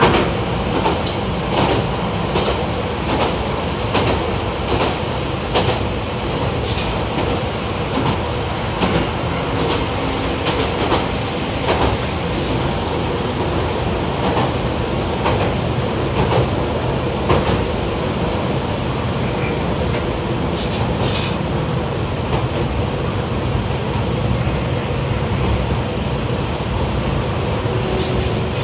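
Running sound inside the cabin of a YR-880 series light diesel railcar: a steady hum of the engine and running gear with recurring clicks of the wheels over rail joints, coming at uneven spacing.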